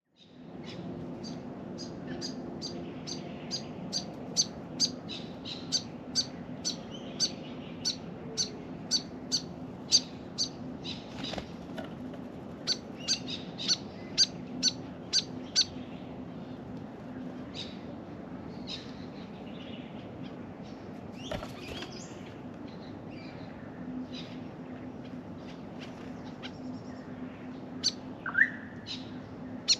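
Backyard birdsong: a bird repeats a short, sharp, high chirp about twice a second for roughly the first half, then calls more sparsely, with other birds calling now and then. A low steady hum runs underneath.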